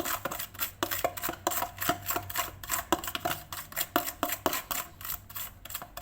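A utensil beating margarine, sugar and baking powder in a mixing bowl: a quick, uneven run of clacks and scrapes against the bowl, about three or four a second, as the fat and sugar are creamed.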